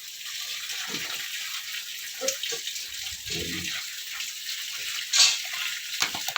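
Steady hiss of running water, as from a hose or pipe washing down a pig pen, with a few short low sounds and a brief louder splash-like burst about five seconds in.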